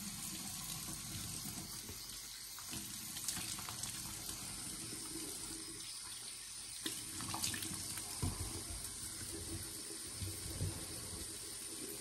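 Bathroom sink tap running while someone rinses a face mask off with splashes of water, with a few sharper splashes and knocks in the middle of the stretch.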